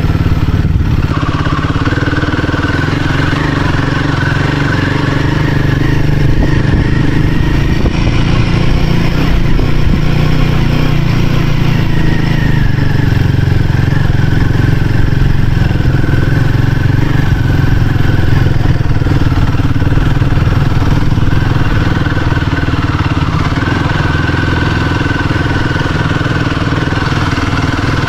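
Royal Enfield Himalayan 450's single-cylinder engine running steadily while the motorcycle is ridden along at an even pace.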